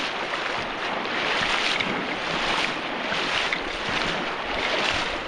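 Steady rush of river water with wind buffeting the microphone.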